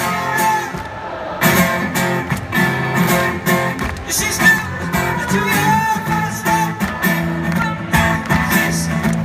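Solo acoustic guitar strummed live in a steady rhythm, heard from the crowd at a concert.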